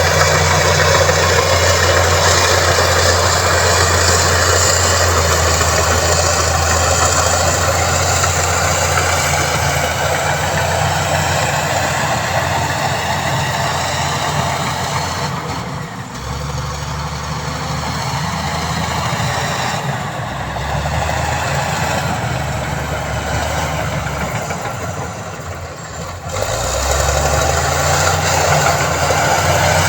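Heavy diesel engine of road-building machinery running, with a loud rushing noise over it. The noise eases about halfway through and again near the end, where the engine note shifts.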